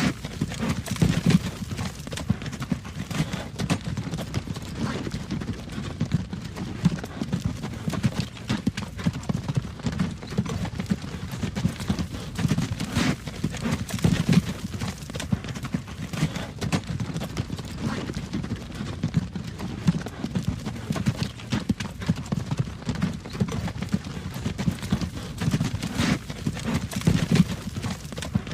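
Horse hooves clip-clopping on a road while a wagon rolls behind, with a steady low rumble from the wheels under many close-spaced hoof strikes.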